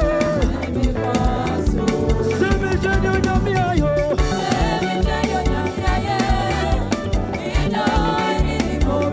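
Fast, upbeat live praise music: a band with a steady drum and bass beat, and voices singing over it.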